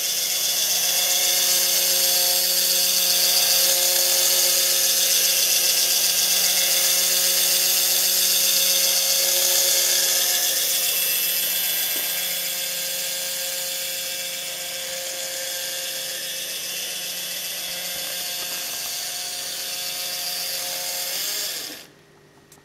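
Small electric gear motor whirring steadily as it drives the push rods and oar linkage of a model rowing mechanism, a little quieter in the second half; it cuts off suddenly near the end.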